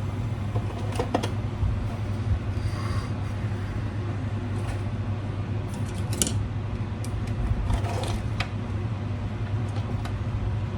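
Steady low hum with scattered light clicks and taps, as of small parts and tools being handled on a workbench.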